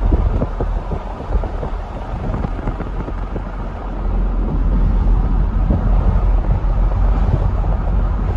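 Wind buffeting the microphone: a loud, uneven low rumble that swells and drops in gusts, growing stronger about four seconds in.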